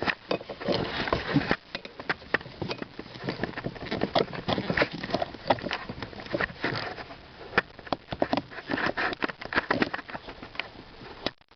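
Irregular clicks and knocks with handling noise as a small retaining clip is worked off an accelerator cable by hand.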